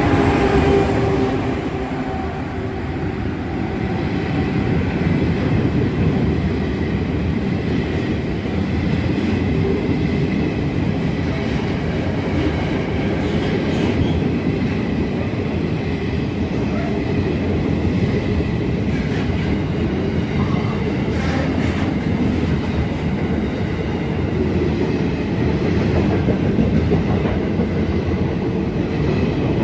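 A freight train of hopper wagons rolls past at close range, giving a steady rumble and clatter of wheels on the rails. The locomotive's engine sound fades out in the first couple of seconds.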